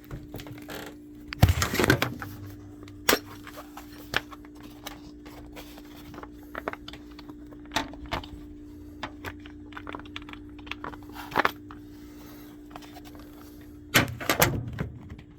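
A screwdriver prying at the plastic retaining tabs of a Bosch dryer's door switch: scattered clicks, scrapes and knocks, with two louder bursts of rattling, one about a second and a half in and one near the end. A steady low hum runs underneath.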